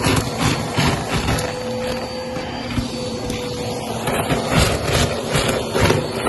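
Upright vacuum cleaner running on carpet with a steady motor whine, its sound swelling and easing in a quick rhythm as it is pushed back and forth, smoother for a stretch in the middle.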